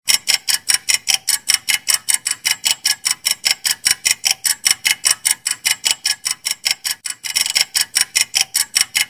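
Clock-ticking sound effect ticking fast and evenly, several ticks a second, marking a 10-second countdown timer.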